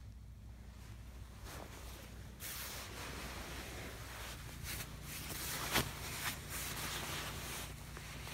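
Nylon sleeping bag and tent fabric rustling as they are handled. The rustling starts about two and a half seconds in, with a sharper crinkle near six seconds.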